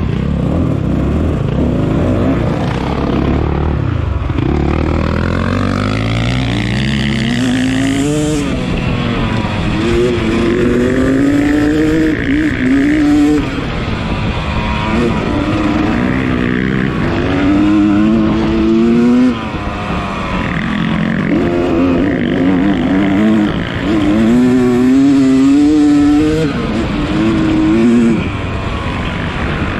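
250 dirt bike engine racing: its pitch climbs as it revs up, then drops back, again and again, as the rider works the throttle and shifts.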